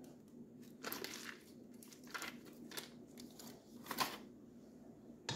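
Faint crinkling of a cream cheese wrapper being handled and set down, in a handful of short crackles.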